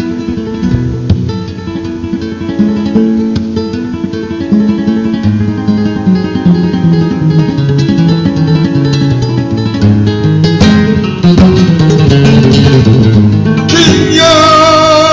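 Flamenco guitar playing the introduction to a fandango: runs of plucked notes, building in loudness. A singer's voice comes in near the end with a long, wavering held note.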